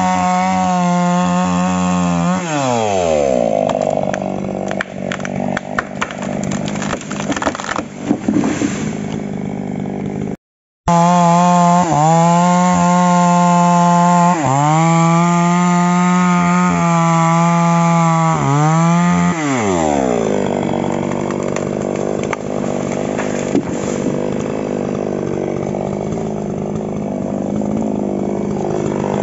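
Mini Falcon small chainsaw running at full revs while cutting through a tree trunk, then its pitch falls as it drops back to idle, with a few sharp clicks while it idles. After a brief dropout it revs high again through the wood, with short dips, and falls back to idle.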